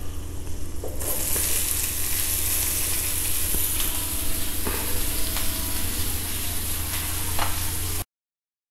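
Chopped onions sizzling in hot butter on an iron tawa. The sizzle jumps up about a second in as they hit the pan, with a few light clicks, then cuts off abruptly near the end.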